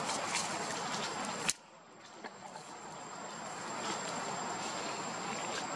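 Steady outdoor background hiss with a faint, high, steady whine. About a second and a half in, a sharp click cuts it off abruptly, and it slowly builds back up over the next few seconds.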